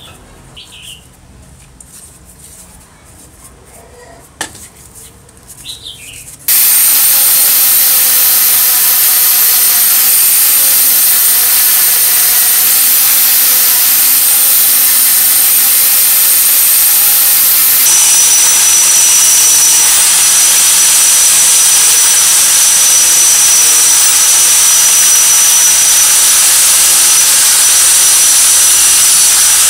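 A small brush scrubs a metal part in a pan of cleaning liquid. About six seconds in, an electric angle grinder starts abruptly, running loud and steady as it is worked on the compressor's metal pulley disc, and its pitch shifts about two thirds of the way through.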